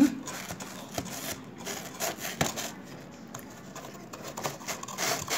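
Cardboard pizza box rustling and scraping as a cat pushes its head and paws against it, with a few sharp clicks about a second and two and a half seconds in.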